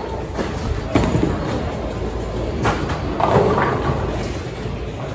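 Bowling alley noise: a steady low rumble of balls rolling down the lanes, with sharp thuds about a second in and again just before halfway.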